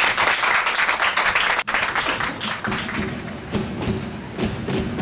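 Audience applauding, a dense patter of many hands. Under two seconds in there is a sudden break, and after it the clapping thins out as music comes in.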